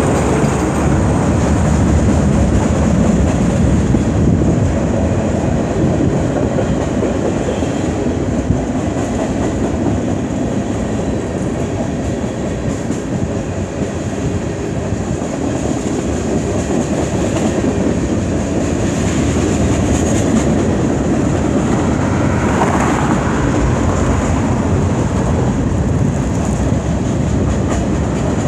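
Freight cars of a CN freight train rolling steadily past, a continuous noise of steel wheels running on the rails.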